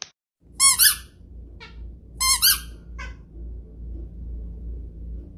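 Rubber squeaky dog toys: a loud squeak close by, answered under a second later by a fainter squeak from farther off, twice over. The small dog squeaks his own toy back after the person squeaks theirs.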